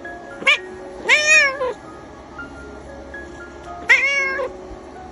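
Tabby cat meowing three times: a short, sharp meow about half a second in, a longer arched meow right after, and another about four seconds in.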